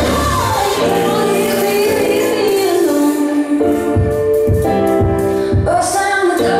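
Music for a dance routine: a sung melody in long held notes over a backing, with a few short percussion hits near the middle.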